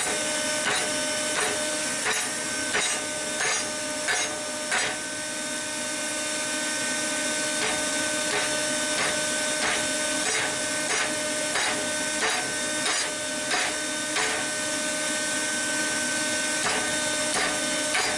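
Hand hammer striking hot steel over the horn of an anvil to bend a curve, about one and a half blows a second in three runs with short pauses between, over a steady hiss.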